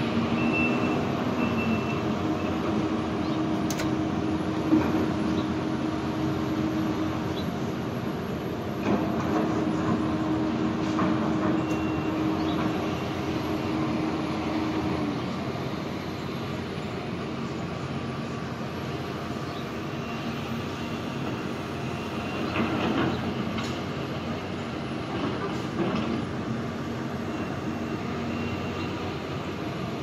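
Steady mechanical rumble of engines, with a low hum that ends about halfway through and a few short clanks.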